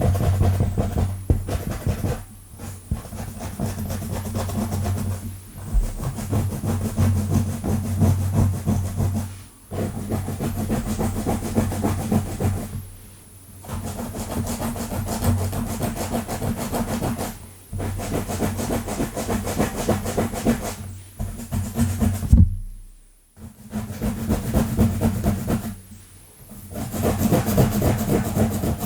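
Long fingernails scratching fast and hard through hair and across a scalp, close to the microphone. The scratching comes in runs of a few seconds with brief pauses between them.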